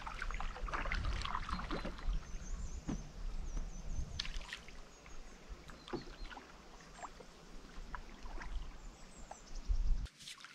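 Wind rumbling on the microphone over small water lapping and clicking against the stony loch shore, with a few faint high chirps in the middle. The rumble stops abruptly just before the end.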